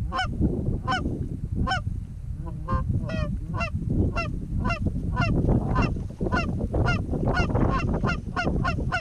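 Canada goose honks and clucks in a quick, steady run, about two or three a second and coming faster near the end, over a low wind rumble.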